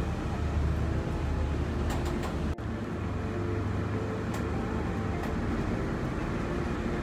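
Bus engine running with a steady low rumble, heard from inside the passenger cabin, with a few faint clicks. The sound drops out for an instant about two and a half seconds in and then carries on.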